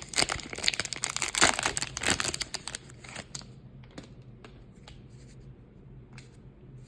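Plastic wrapper of a trading-card poly pack being torn open and crinkled for about three seconds, then only a few faint crinkles and clicks.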